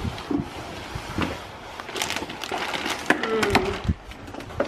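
Clear plastic packaging bag around a bicycle frame rustling and crinkling as the frame is lifted out of a cardboard box, with irregular crackles throughout.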